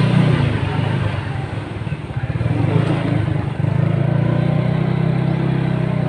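Small motorcycle engine running steadily. Its note eases off about two seconds in and picks up again past the middle.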